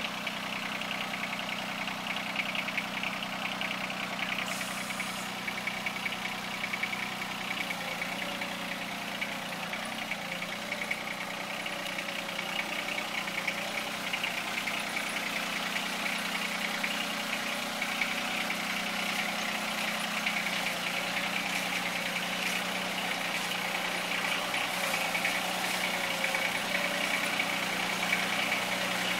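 Compact utility tractor engine running steadily at low speed as the tractor creeps forward.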